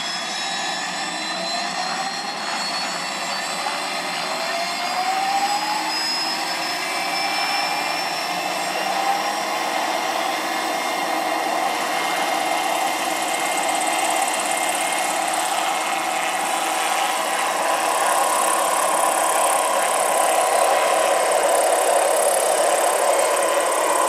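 Electric RC scale AH-1 Cobra helicopter with a 2.5 m rotor spooling up on the ground. Its whine rises in pitch over the first several seconds as the rotor comes up to speed, then settles into a steady whine and rotor whoosh that grows louder toward the end as the model lifts off.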